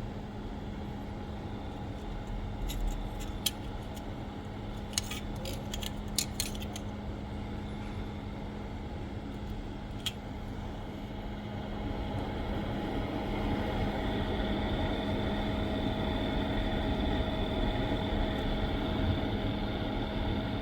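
Steady electrical hum with a constant low drone and a few light clicks and taps. About twelve seconds in, the hum grows a little louder and a faint high whine comes in.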